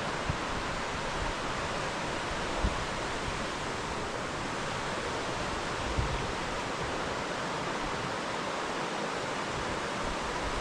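Steady rushing of a flowing river, with a couple of brief low bumps about a third and halfway through.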